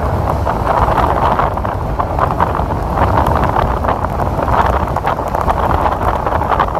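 Strong tropical-storm wind buffeting the phone's microphone in a steady loud rumble, over storm surf breaking on the shore.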